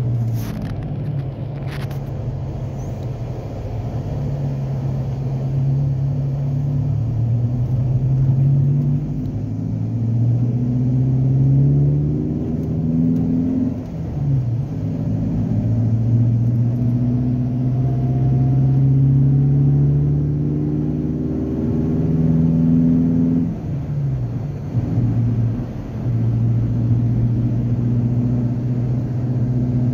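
Car engine and road noise heard from inside the moving car's cabin: a steady low drone whose pitch climbs slowly and drops suddenly twice. Two sharp clicks in the first two seconds.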